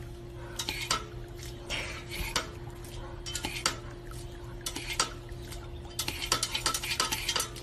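Irregular light clicks and clinks, a few each second, over a steady low hum.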